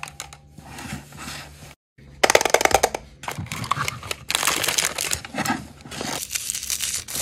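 Plastic clicking and rattling of a toy dispenser as its drawers and knob are worked, with a rapid run of clicks about two seconds in. This is followed by the crinkling of a foil blind bag being cut open with scissors.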